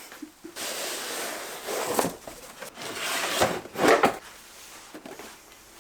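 Rubbing and scraping with a few sharp knocks, like something being handled and moved against a hard surface: a longer hiss-like rub, then three or so light knocks.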